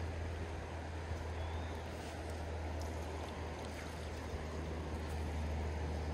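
Steady rushing of a river's current.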